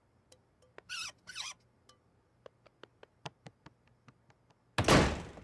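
Cartoon sound effects: a run of light ticks and clicks, two short scraping sounds about a second in, and a loud sudden whoosh near the end that trails off.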